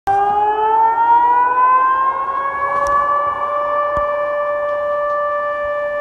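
Civil defense warning siren sounding a steady wail. Its tone rises in pitch over the first three seconds, then holds level. It is a scheduled test of the public emergency warning system.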